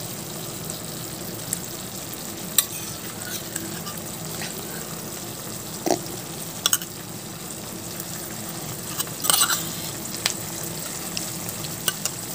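Milk thickening as it boils down in a nonstick pan, bubbling and sizzling steadily while a silicone spatula stirs and scrapes it, with a few sharp clicks.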